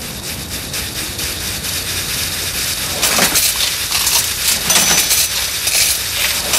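Cartoon sound effect of many coins rattling and clinking through metal pipes: a dense stream of metallic clicks that grows steadily louder, with a few short falling swishes.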